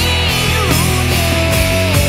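Live rock band playing loud, with electric guitars, bass and a steady drum beat; a lead line slides down and then holds a long note.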